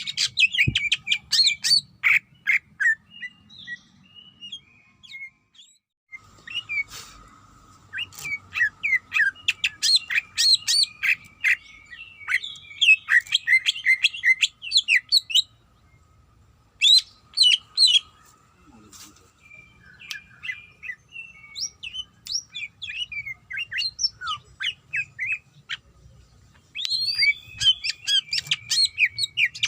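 Cucak ijo (green leafbird) singing loud bursts of rapid, sharp, varied chirps and whistles, broken by short pauses of a second or two: its song calling out to a rival.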